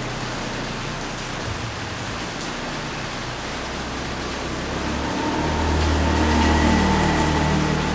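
Steady rain falling, an even hiss. About five seconds in, the low engine hum of a passing motor vehicle swells over the rain and eases off again near the end.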